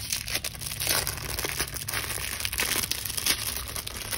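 Packaging crinkling and rustling in hands as a pack of A7 cash-budget envelopes is unwrapped, a continuous irregular crackle.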